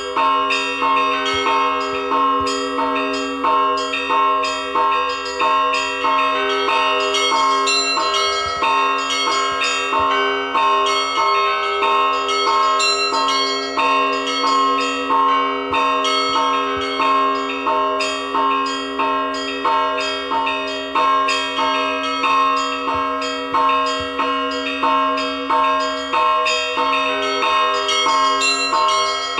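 Russian church bells rung together in a continuous peal. Quick, dense strikes of small bells ride over a steady beat of heavier strokes about once a second, with a lower bell's hum sounding on underneath.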